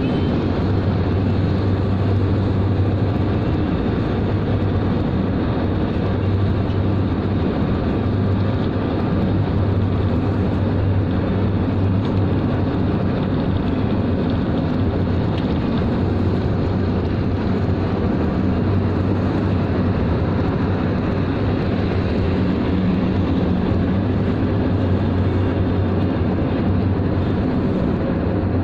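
Steady road noise of a vehicle cruising at highway speed, heard from inside the vehicle, with a constant low hum.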